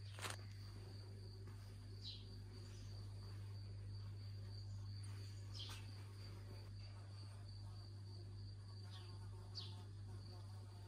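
Crickets chirring faintly and steadily in a high continuous tone, over a steady low hum, with a few short high chirps now and then.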